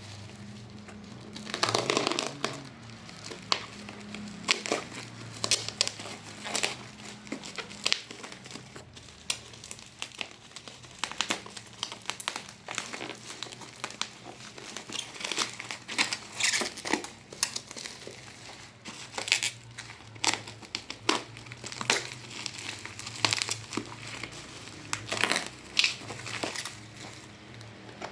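Packaging crinkling and rustling by hand in irregular bursts of crackles while it is unwrapped.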